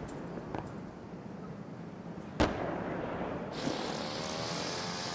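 Sharp bangs of distant explosions, a faint one about half a second in and a louder one about two and a half seconds in. From about three and a half seconds a string trimmer starts running steadily, with a wavering engine whine over a hiss.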